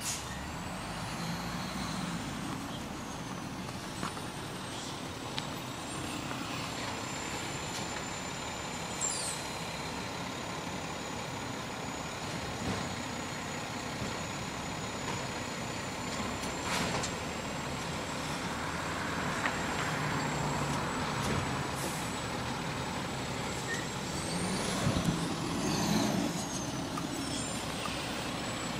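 Garbage truck collecting yard waste, its diesel engine running steadily, with a few brief hisses and knocks from the truck at work.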